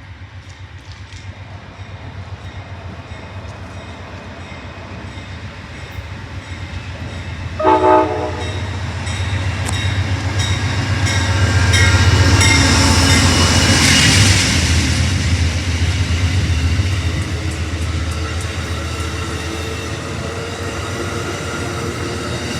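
Amtrak passenger train approaching and passing: a short blast of the locomotive's horn about eight seconds in, then the locomotive's rumble and the wheels clicking over the rail joints, growing louder to a peak a few seconds later and easing off slowly.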